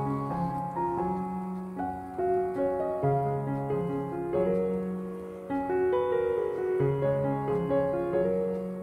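Background piano music: a melody of short notes over long held bass notes.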